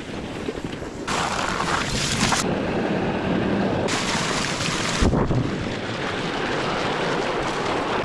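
Dog sled runners hissing and scraping over snow and ice, with wind rumbling on the microphone; the hiss comes and goes in stretches, and there is a single thump about five seconds in.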